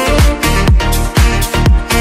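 Electronic dance music with a steady four-on-the-floor kick drum, about two beats a second.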